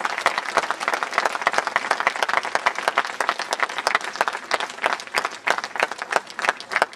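Crowd applauding, many hands clapping at once, the applause gradually dying down.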